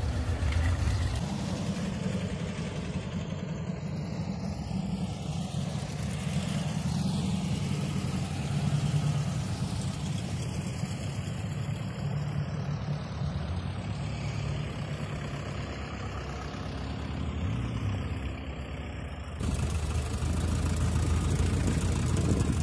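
Volkswagen bus engines running at low revs as the vans move slowly, a steady low drone that shifts a little in pitch. The sound changes abruptly about a second in and again near the end.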